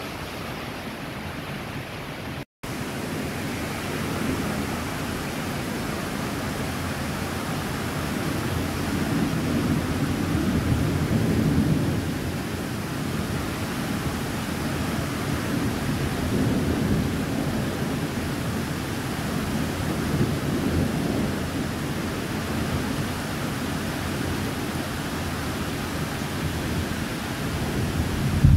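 Thunderstorm: heavy rain hissing steadily, with low rolling thunder that swells and fades around the middle and builds again near the end. The sound cuts out completely for a split second about two and a half seconds in.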